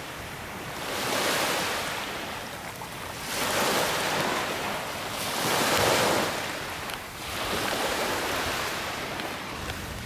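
Small sea waves breaking and washing on the shore: a hiss of surf that swells and falls away four times, about every two seconds.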